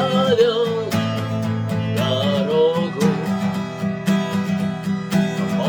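Acoustic guitar strummed in a steady rhythm, with a voice singing in Russian over it.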